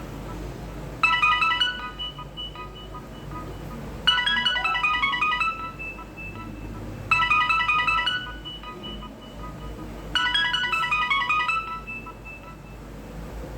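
Nokia 2760 mobile phone playing a Nokia 6030 ringtone through its small loudspeaker: a quick run of high-pitched melodic notes, each lasting about a second and a half, that repeats four times at roughly three-second intervals.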